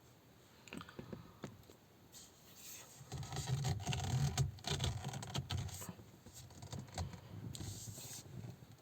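Rustling and scraping with scattered clicks, loudest in the middle, together with a low rumble.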